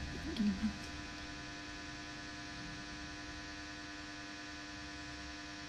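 Steady electrical hum and buzz, with a short murmur of a voice about half a second in.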